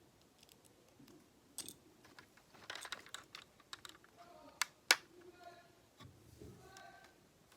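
Plastic Lego bricks clicking and rattling as they are handled and fitted, a quick cluster of small clicks a few seconds in, then two sharp snaps close together.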